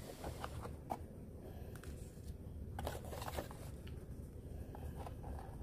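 Faint rustling and scattered light taps of paper cards and a cardboard subscription box being handled.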